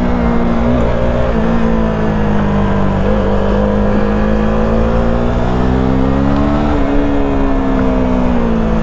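Motorcycle engine running under way, heard close up. Its note rises and falls gently with the throttle and dips briefly a few times.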